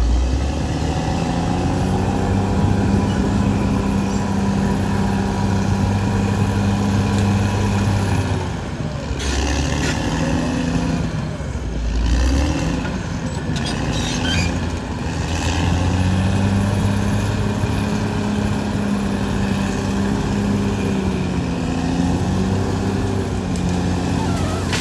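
Caterpillar D6R XL bulldozer's diesel engine running steadily under load, its note sagging and recovering briefly twice, with a few clanks in the middle.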